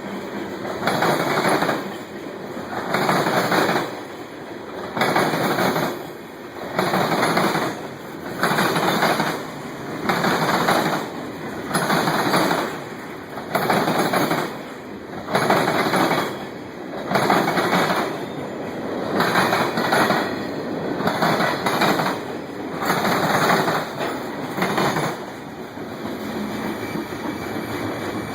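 Diesel locomotive horn blown in a long run of evenly spaced blasts, each about a second long with about a second between them, around a dozen in all: a horn show. Near the end the blasts stop and a steadier, lower noise from the train carries on.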